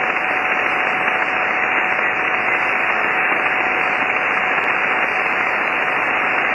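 Steady hiss of 20-metre band noise from a Kenwood TS-480 HF transceiver's receiver, tuned to an empty stretch between single-sideband transmissions, with a faint steady whistle running through it.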